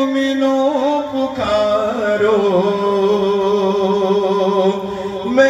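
Male voices chanting an Urdu noha, a Shia lament, drawing out long held notes. The melody drops to a lower held note about a second and a half in.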